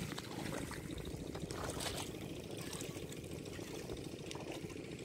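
Water sloshing and trickling as people wade through a weedy pond, over a steady low rumble, with a few small splashes.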